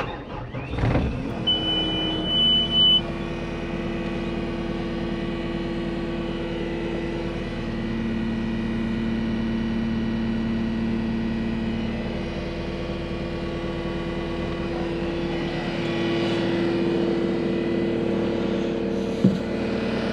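Cat 259D compact track loader's diesel engine starting, with a steady electronic warning beep for about a second and a half just after it catches, then idling steadily. A single sharp knock near the end.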